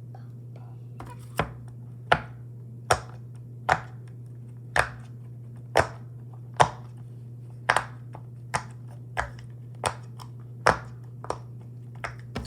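Silicone pop-it fidget toy being popped bubble by bubble: about fifteen sharp pops, roughly one a second, with a slight echo.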